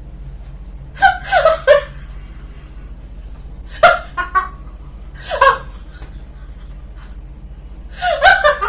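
Laughter in four short bursts, over a steady low hum.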